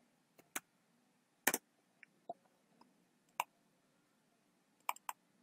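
Scattered sharp clicks of a computer mouse and keyboard, about six in all, with a quick double click about a second and a half in and two clicks close together near the end.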